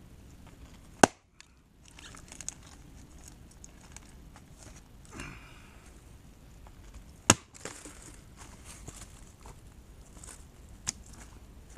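Two sharp axe strikes biting into a log, about six seconds apart, with faint knocks and rustling between them.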